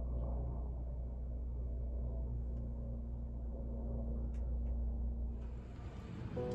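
Steady low outdoor rumble with a faint hum, and a couple of faint clicks about four and a half seconds in.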